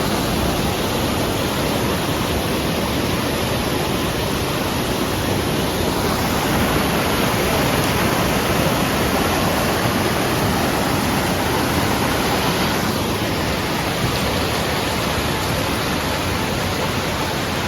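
Waterfall pouring down a rocky cliff: a steady, loud rush of falling water.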